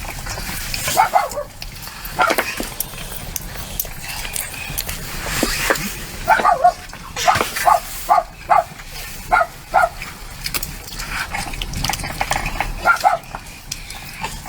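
Dog barking, with a quick run of short barks in the middle.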